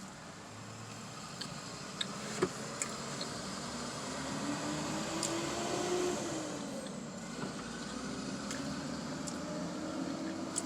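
Traffic on a busy highway heard through a half-open car window: a passing vehicle's engine tone rises and then falls away, over steady road noise. A few small clicks about two seconds in.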